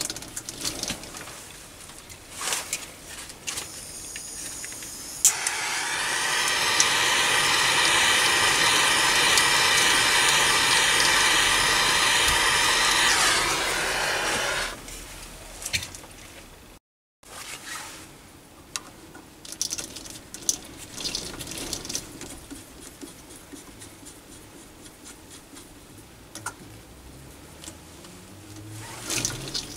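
Hot-air gun blowing for about nine seconds, a steady motor whine over a rush of air, warming a Loctite 638 joint so it sets quicker. It is switched off and the whine drops as it winds down. Light clicks and handling knocks come before and after.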